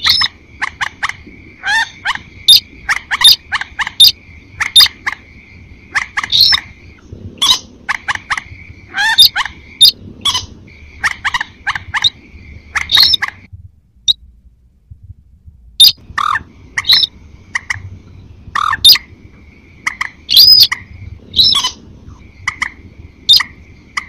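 Recorded lure calls of wetland rails, the sintar crake mixed with mandar and other marsh birds, played to draw birds into a night net. Rapid sharp call notes repeat over a steady high trill, with a break of about two seconds a little past halfway.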